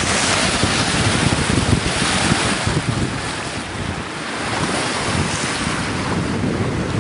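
Wind buffeting the microphone over the steady rush of water along the hull of a sailing ketch under way.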